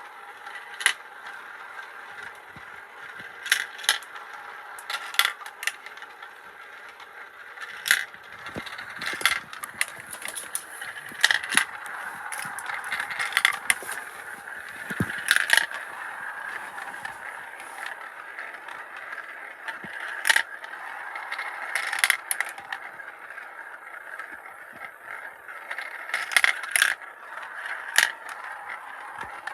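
Marbles rolling and spinning through a plastic marble run's funnels, a steady rolling whir that swells and fades, with sharp irregular clicks as marbles knock against the track and each other.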